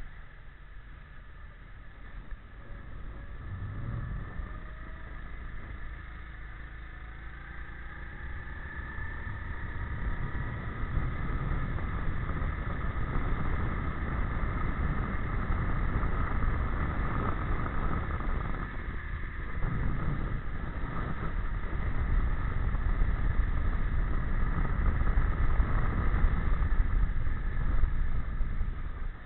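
Go-kart engine running at speed, heard from onboard, its pitch rising and falling with the throttle through the corners. A low wind rumble on the microphone sits underneath.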